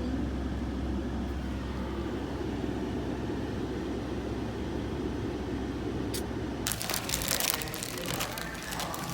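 Steady low rumble of a car heard from inside. About seven seconds in the rumble drops away and loud crinkling and crackling of packaging or a bag being handled begins.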